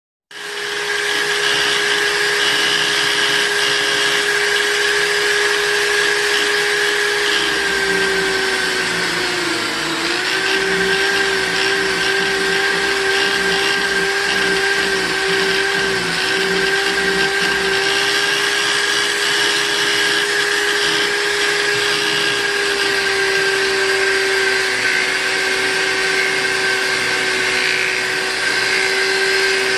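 Electric buffing machine motor running steadily with a high, even whine, its pitch sagging briefly about ten seconds in, as while a spoon knife is buffed on the wheel.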